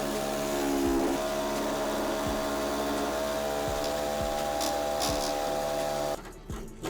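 A power tool's motor running steadily with an even whine, cutting off abruptly about six seconds in.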